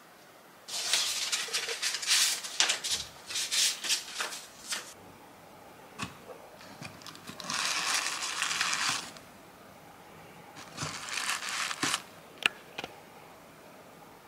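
Tissue paper rustling and crinkling in three spells of handling, each a second or a few seconds long, as candles are settled into a paper-lined gift box. A few light knocks or taps come between the spells and near the end.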